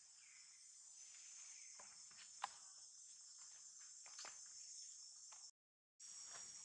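Steady high-pitched drone of insects. A few soft clicks and taps come over it, the sharpest about two and a half seconds in. The sound cuts out for half a second near the end.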